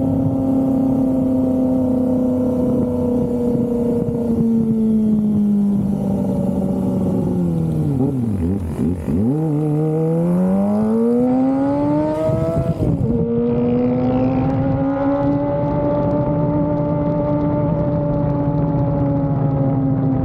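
Kawasaki ZX-25R inline-four engine running at high, steady revs. About six seconds in its pitch falls away and then climbs again, drops suddenly near thirteen seconds as at a gear change, and settles back to a steady high note.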